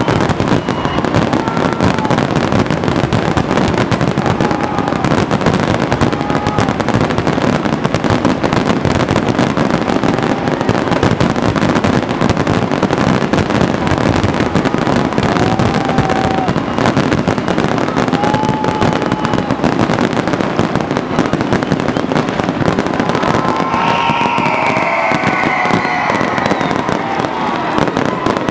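Fireworks display: a dense, continuous barrage of overlapping bangs and crackling aerial shells.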